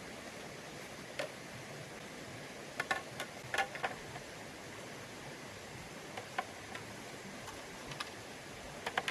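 Steady hiss of a running stream, with scattered short, sharp clicks and knocks, a cluster of them about three to four seconds in and a couple more near the end.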